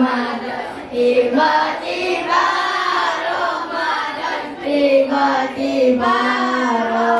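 A group of boys singing together into a handheld microphone, in long held phrases.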